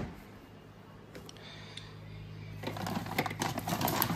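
A knock, then a faint low hum. From about two-thirds of the way in comes rapid crinkling and rustling of a plastic cat-food packet being handled, growing louder.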